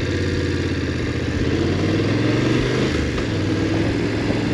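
BMW F850GS parallel-twin motorcycle engine running under way, its note rising a little and then easing off about three seconds in.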